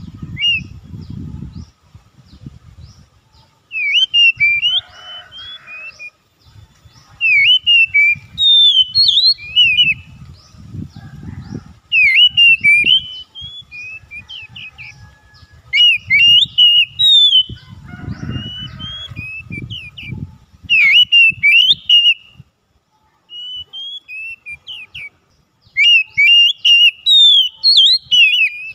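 Oriental magpie-robin singing: loud, varied whistled phrases of quick rising and falling notes, in bursts of a second or two every few seconds. Bursts of low rumbling noise sit underneath at times.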